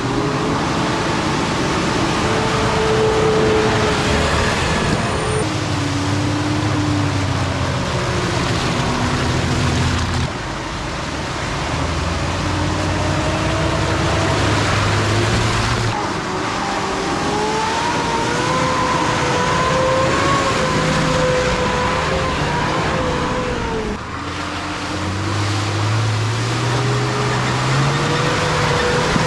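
Off-road 4x4 rig engines revving and labouring on a trail climb, the engine pitch rising and falling again and again. The sound changes abruptly about 10, 16 and 24 seconds in.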